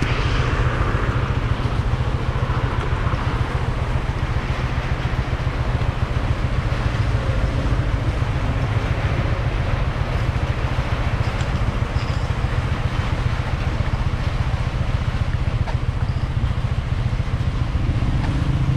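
Motorcycle running, heard from a camera mounted on the bike. A steady low rumble runs under an even hiss of noise.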